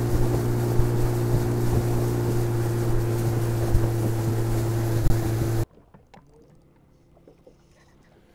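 Small outboard motor running at a steady speed under way, with wind and water rushing past; the sound cuts off abruptly about six seconds in, leaving only a faint background.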